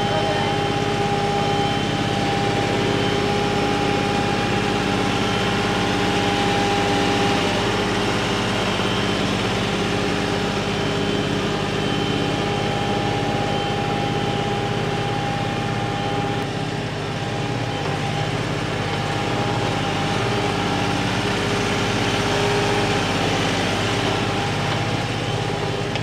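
Kioti compact tractor's diesel engine running steadily with a constant pitched hum while the tractor works dirt back into a fence-post hole.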